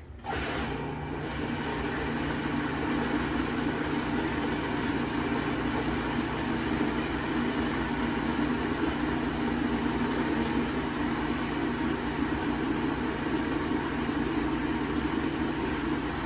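Countertop food processor running steadily, mixing thick coconut cupcake batter after the flour and leavening have gone in. It starts just after the beginning and cuts off at the end.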